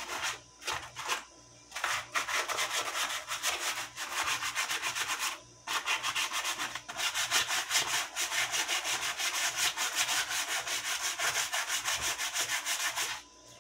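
Sandpaper rubbed by hand along a dry tree branch in quick back-and-forth strokes, about four a second, with a short break midway and stopping near the end. It is light sanding to take rough bits off the wood and even the surface.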